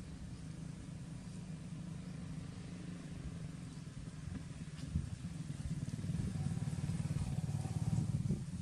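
A low, steady engine hum that grows louder about halfway through.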